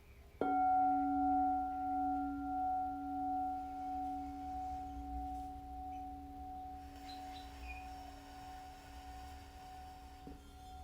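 Singing bowl struck once, then ringing on in a long slowly fading tone with a gentle wavering pulse.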